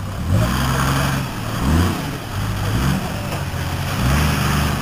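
Toyota Land Cruiser engine revving up in repeated bursts, about four times, as the 4x4 works its way up a steep dirt mogul under load.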